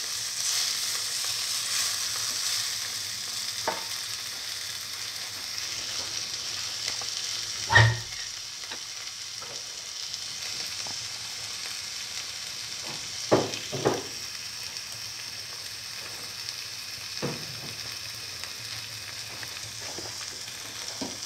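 Onion, garlic, tomato and fenugreek leaves sautéing in oil in a pan, a steady sizzle that slowly dies down. A spatula knocks against the pan several times, loudest about eight seconds in and twice in quick succession around thirteen seconds in.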